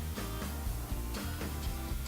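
Background music with a bass line changing notes every half second or so.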